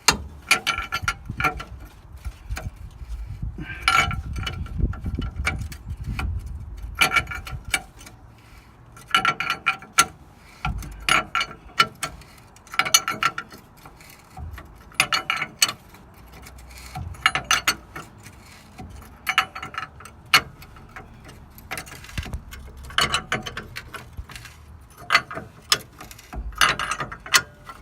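Ratchet wrench clicking in short bursts, about one every two seconds, as it backs off a tight U-bolt nut on a leaf-spring mount.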